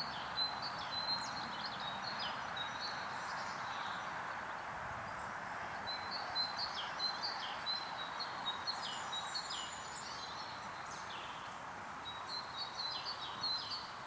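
A small bird chirping in short high notes and quick downward sweeps, in irregular runs, over a steady background hiss.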